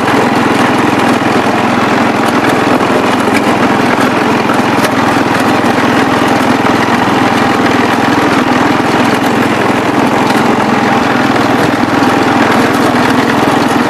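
Gravely 408 tractor's engine running steadily as the tractor plows snow with its blade.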